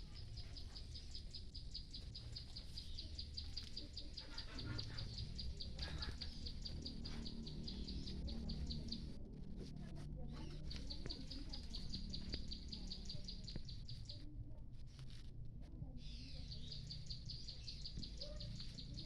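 A high, rapidly pulsed chirping trill from a small animal, running in long stretches that break off about halfway through and again later before resuming, over a low steady rumble.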